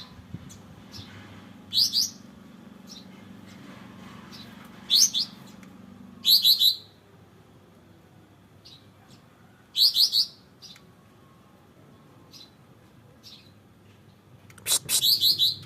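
A kapas tembak (pied triller) sings five loud, short trilled bursts, each about half a second long, with faint short chirps between them.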